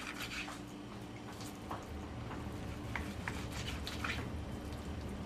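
Raw meat being handled and cut on a wooden cutting board: a few soft, scattered clicks and knocks over a steady low hum.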